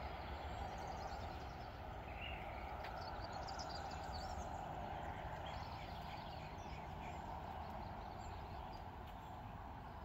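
Small birds chirping and singing over a steady hum of car traffic. A few short, high chirps cluster in the middle.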